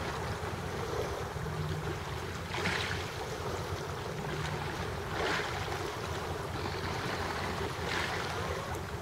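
Small sea waves washing against shoreline rocks, a swell of surf about every two and a half seconds, over a steady low rumble.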